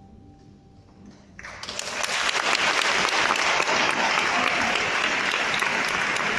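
A faint last held note of the song fades out, then about a second and a half in the congregation breaks into loud, steady applause.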